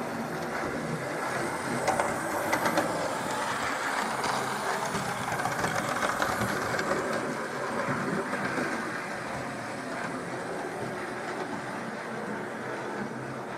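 OO gauge Hornby Railroad GWR County class model locomotive running on track, with a steady whirr of its motor and wheels and a few sharp clicks about two to three seconds in.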